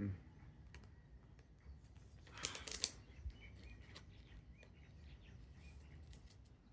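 Trading cards being handled: a brief cluster of crisp rustles and clicks about two and a half seconds in, with fainter ones near the end.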